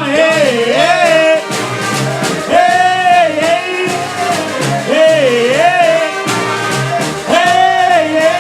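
Live brass band music: a short, held horn phrase that bends in pitch, played four times over a steady beat.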